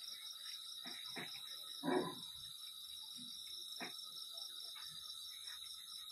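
Night-time chorus of crickets and other insects: a steady high trill with a pulsing chirp above it. A few short sounds break through it, the loudest about two seconds in.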